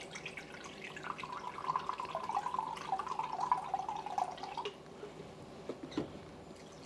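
Rice vinegar pouring from a bottle into a glass measuring cup, a steady pour from about a second in that stops short of the five-second mark. A small knock comes near the end.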